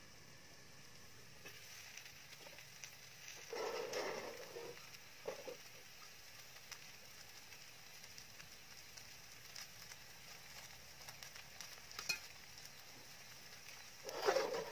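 Thin crepe batter frying in an aluminium wok: a faint, steady sizzle. A few brief handling sounds break in, the loudest near the end as cooked pork filling is spooned onto the crepe.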